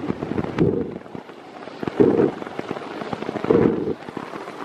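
Water noise in flood water or rain, a rough patter with three louder surges about a second and a half apart.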